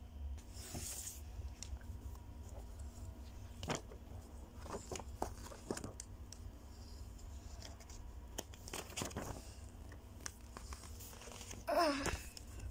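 Paper bus timetable leaflets being handled and moved about, with faint, scattered rustles and soft clicks. A brief squeak comes near the end.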